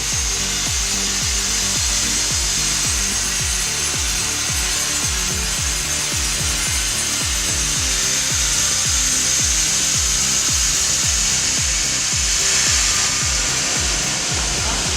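A power saw cutting through wood, a steady high hiss of sawing that runs on throughout, under background music with a regular thudding beat.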